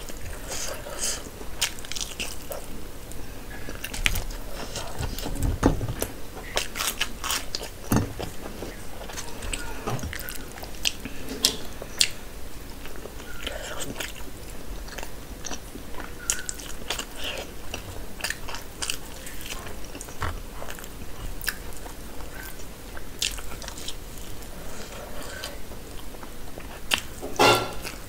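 Close-miked chewing and biting of curried meat eaten by hand, with irregular wet smacks and clicks. A louder cluster of smacks comes near the end.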